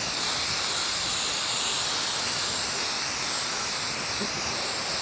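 Aerosol can of spray primer spraying in one continuous, steady hiss.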